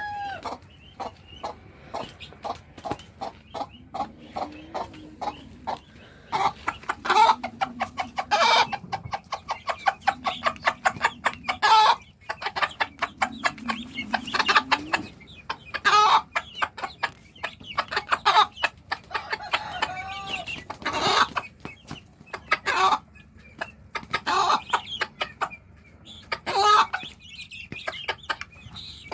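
A mother hen clucking in rapid runs of short clucks, with louder calls every few seconds: her food call, summoning her chicks to eat.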